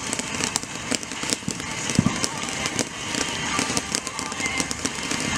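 Consumer fireworks going off: a dense crackle of many small sharp pops, with one deeper boom about two seconds in.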